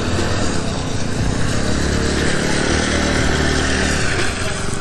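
TVS Ntorq scooter's engine running under throttle as it climbs a slushy, icy snow-covered slope, growing louder from about halfway through.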